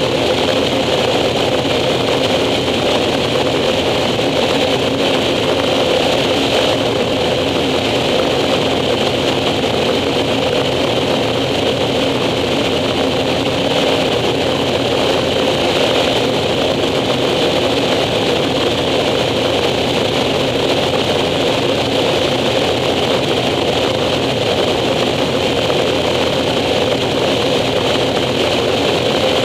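Air Tractor 402B's turboprop engine and propeller droning steadily in flight on approach to land, an even engine tone over a constant rush of air.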